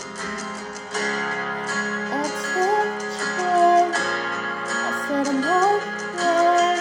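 Guitar strummed in a steady chord pattern, with a wordless vocal melody coming in about two seconds in, sliding between held notes.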